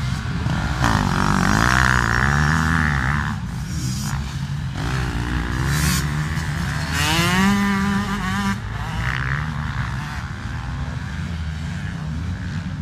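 Motocross dirt bike engines revving hard through a corner, their pitch climbing and dropping several times as the throttle is opened and shut, loudest about a second in and again about seven seconds in, with other bikes running in the background.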